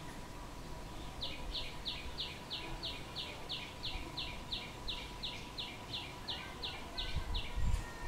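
A small songbird calling a long, even series of short, sharp, identical high notes, about three a second, for some six seconds. A low rumble comes in near the end.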